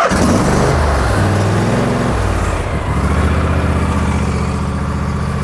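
Craftsman riding lawn tractor engine starting up and catching at once. It runs unevenly for the first couple of seconds, then settles into a steady run. It keeps running with nobody on the seat because the parking brake is set, which overrides the seat safety switch.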